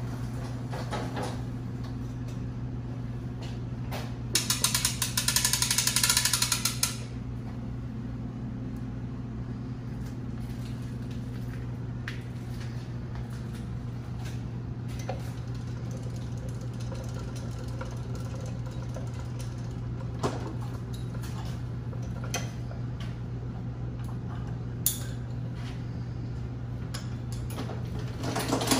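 Workshop handling sounds while a milling vise is swapped on the mill table: a rapid ratcheting clatter for about two and a half seconds about four seconds in, then a few scattered knocks over a steady low hum.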